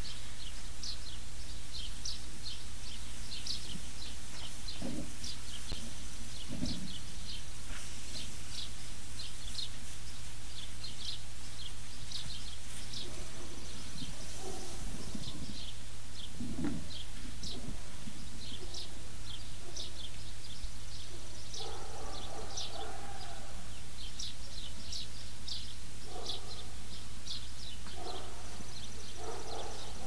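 Many short, high bird chirps repeating throughout over a steady low hum, with a few fainter, lower sounds in the last third.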